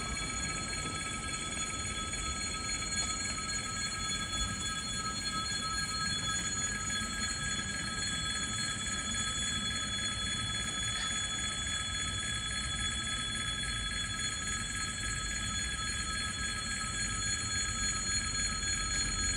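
Railway pedestrian-crossing warning signal ringing steadily, several high pitches at once, over a low outdoor rumble.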